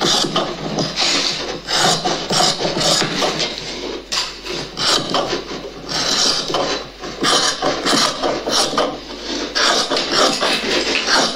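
Scissors cutting through folded dress fabric on a wooden table: a run of rasping snips, broken now and then by brief pauses.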